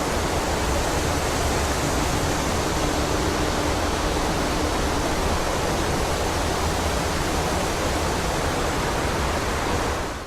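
Wind blowing through a forest: a steady, even rush that fades out at the very end.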